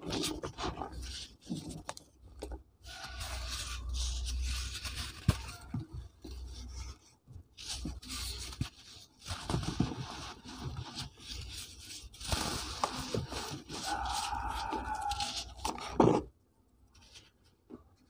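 Hands crushing and crumbling soft, powder-coated cement blocks in a tub of loose powder: irregular dry crunching, scraping and powdery crumbling with occasional sharp cracks. The loudest crack comes about two seconds before the end, after which it goes nearly quiet.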